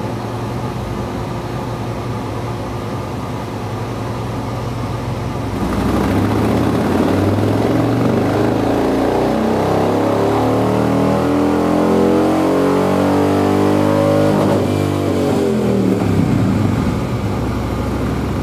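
Motorcycle V-twin engine with CNC-ported heads running on a roller dyno. It runs steadily at first, then about five and a half seconds in it is opened up and the revs climb steadily for about nine seconds in a dyno pull. Near the end the throttle closes and the revs fall away.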